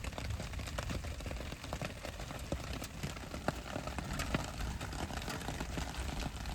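Rain pattering: many small irregular taps over a steady low rumble.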